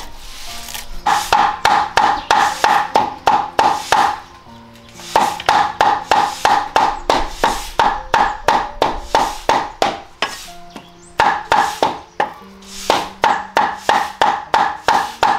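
Steel cleaver mincing raw meat on a thick round wooden chopping block. It falls in quick, even strokes about four a second, in runs with short pauses, and each blow has a short metallic ring. Soft background music plays underneath.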